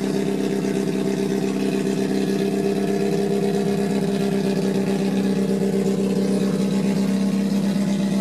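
Alfa Romeo GTA 1300 Junior's twin-cam four-cylinder 'Testastretta' racing engine idling steadily.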